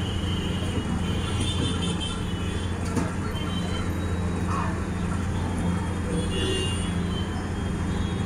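Steady low rumble and hum of street traffic.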